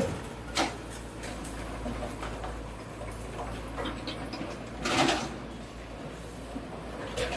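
Hydraulic excavators working on the demolition of a concrete building: a steady low engine rumble with a few sharp knocks and clanks of the bucket against concrete and debris, the loudest about five seconds in.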